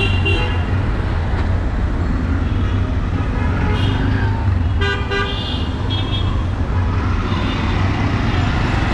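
Dense street traffic: vehicle engines running with a steady low drone, and short horn toots sounding several times, the loudest about five seconds in.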